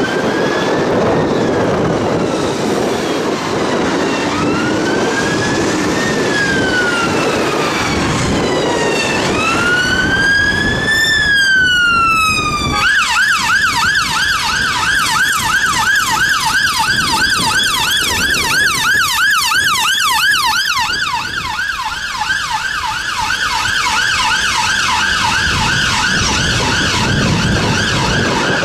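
Two-tone electronic siren of a UK ambulance response car on blue lights. It sounds a slow wail rising and falling every few seconds, then switches abruptly, about 13 seconds in, to a fast yelp that continues over the noise of surrounding traffic.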